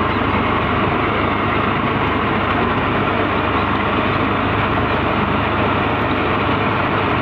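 Motor vehicle engine running steadily while driving, with constant engine and road noise.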